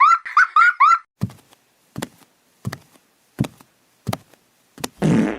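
Edited cartoon sound effect: a quick run of rising, chirp-like squeaks, then about a second in a row of six short sharp knocks, evenly spaced about 0.7 s apart, with a louder, longer sound right at the end.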